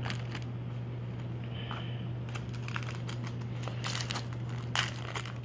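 Foil wrapper of a Panini Chronicles basketball card pack crinkling and tearing as it is ripped open by hand. The sharp crackles start a little over two seconds in and are loudest about four and five seconds in, over a steady low hum.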